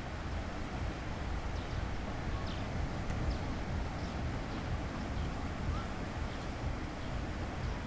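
Sea waves washing on a beach, a steady rushing wash with a low rumble of wind on the microphone.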